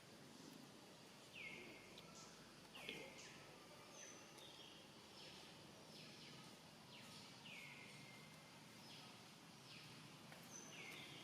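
Faint high chirping calls, each sliding down in pitch, repeated roughly once a second over a steady outdoor hiss.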